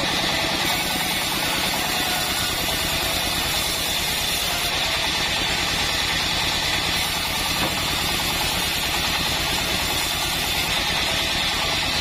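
Bandsaw mill running steadily, its engine drone and the whirring blade holding at an even level.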